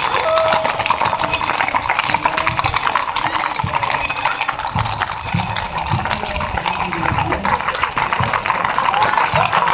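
Hooves of many horses clattering on an asphalt road as a long column of riders trots and canters past, a dense, continuous run of hoofbeats.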